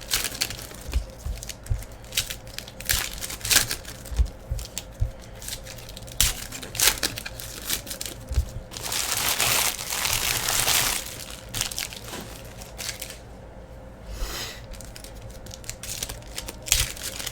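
Trading-card pack wrappers crinkling and being torn open, with cards handled between: scattered short clicks and rustles, and a longer tearing rustle of about two seconds starting roughly nine seconds in.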